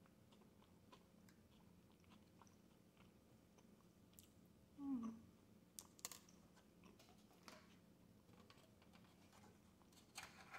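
Faint chewing of a soft burrito, with small mouth clicks. A short low hum from the eater comes about five seconds in. Crinkly clicks near the end come from a clear plastic lid being handled on the foil takeout pan.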